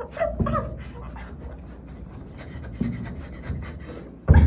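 A person panting and letting out short vocal cries while thrashing about, with scuffs and knocks of movement. About four seconds in comes a heavy thump, the loudest sound.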